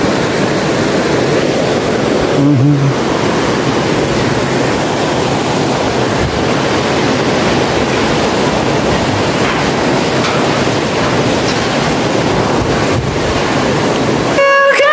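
Fast mountain river running high over rocks, heard from a bridge above it: a loud, steady rush of water.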